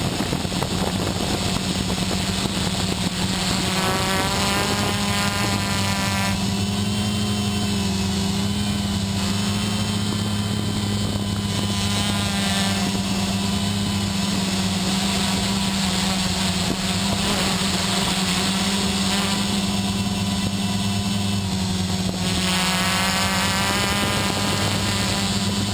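Quadcopter's electric motors and propellers running steadily, heard from the camera carried on the craft, with the motor whine rising and falling in pitch several times as the throttle changes.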